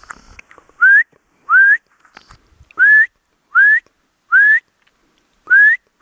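A man whistling six short notes, each sliding upward, with pauses between them, calling his laika dogs back.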